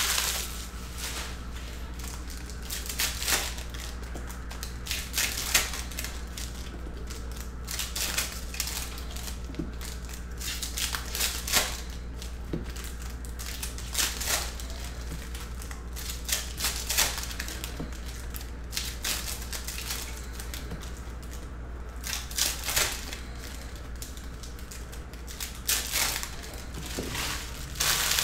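Foil trading-card packs and cards being handled: irregular bursts of crinkling and rustling, about one every second or two, as the wrappers are worked open and the cards shuffled.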